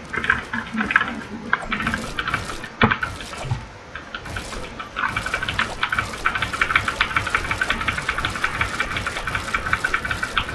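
Keys of a computer keyboard being typed on: clicks that come unevenly at first, then from about halfway through a fast, dense run of rapid key presses.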